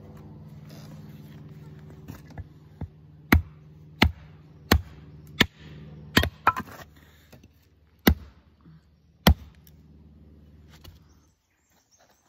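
Hatchet chopping kindling on a wooden block: seven sharp chops, five in quick succession about one every 0.7 s, then two more a second or so apart. A steady low hum runs underneath and stops shortly before the end.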